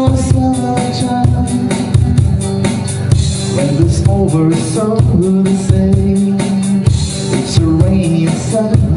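Live acoustic-electric guitar strummed, with a man singing held notes over a steady percussive beat, amplified through a PA.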